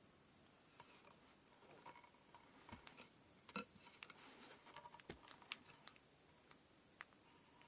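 Faint scattered clicks, taps and light rustling of hands handling cotton thread and kumihimo braiding gear, busiest in the middle, with the loudest tap about three and a half seconds in.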